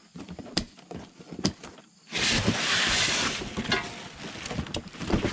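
Unboxing: a few sharp clicks as plastic packing straps are snipped, then a loud scraping rustle of a cardboard box being pulled open about two seconds in. Packaging is handled after that, with foam inserts and a plastic bag rustling and knocking.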